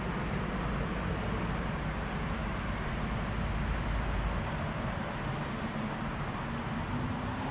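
Steady outdoor traffic noise, with a deep rumble that eases off about four seconds in.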